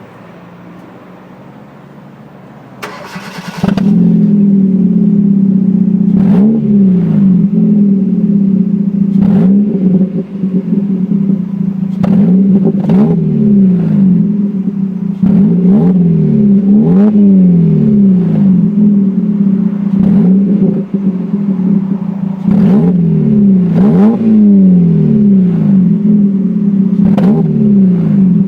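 Car engine heard at the exhaust: a faint rumble, then the engine catches about three seconds in and runs loudly, revved again and again with sharp cracks between the revs.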